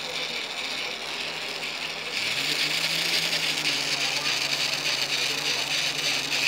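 Homemade model three-cylinder engine running, its crankshaft and connecting rods making a fast, continuous clattering rattle. About two seconds in it gets louder, and a low hum rises in pitch as it speeds up.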